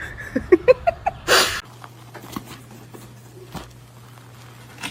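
A pet animal's short squeaky calls, about six in quick succession, each higher than the last, then a brief hiss-like burst. After that only a low steady hum and a few faint clicks.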